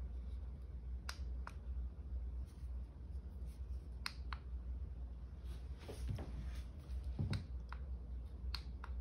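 Quiet pairs of short, sharp clicks, each pair a fraction of a second apart and the pairs a few seconds apart, over a low steady hum. Twice in the second half a softer, fuller rustle is heard.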